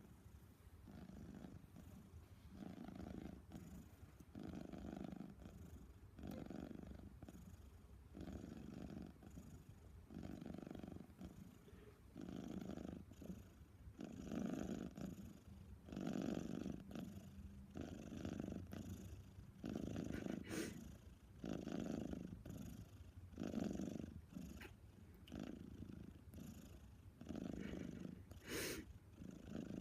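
A pet snoring softly in its sleep after desexing surgery, with one snore on each breath about every two seconds.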